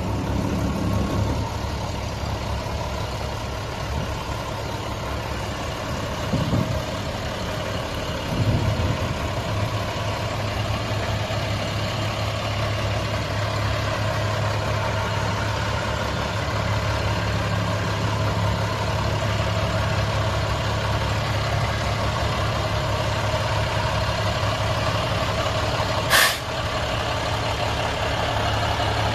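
Diesel engine of an International 7400 dump truck (MaxxForce diesel) idling with a steady low hum that grows a little louder partway through. One short, sharp sound stands out near the end.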